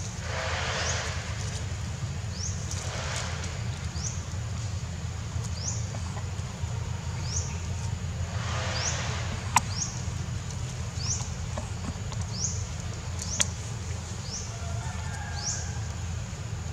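Leaves and thin branches rustling in short bursts as a young macaque climbs and shakes a small tree, with two sharp ticks between them. A high rising chirp repeats about once a second throughout.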